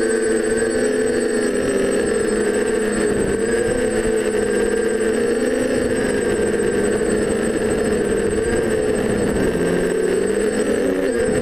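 Quadcopter's brushless motors (DJI 920Kv) spinning Graupner 9x5 propellers: a steady whirring hum whose pitch wavers with throttle, dipping briefly near the end.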